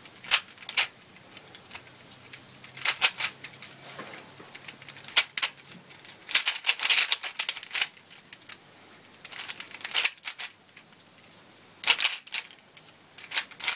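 Dayan 3x3 speed cube being turned, its layers clicking and clacking in quick bursts of several turns, with short pauses between the bursts.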